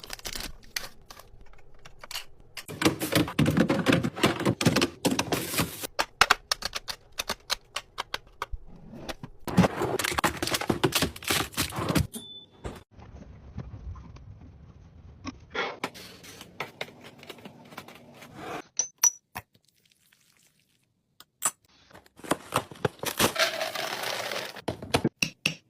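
Packaging and containers being handled: dense runs of clicks, taps and crinkling, in three busy stretches with sparser clicks between and a short lull near the end.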